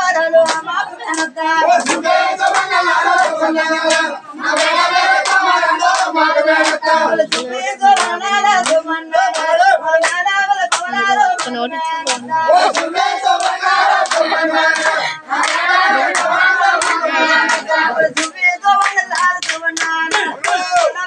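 Voices singing a Telugu golla chaduvu folk song, kept in time by steady rhythmic hand clapping from the performers and onlookers.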